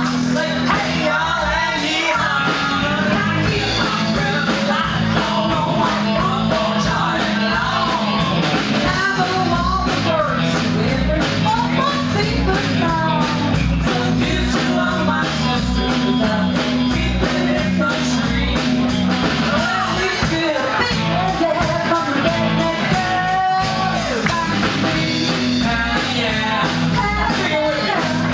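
Live country band playing through a PA: a woman singing lead over electric and acoustic guitars, fiddle and drums, with a steady beat.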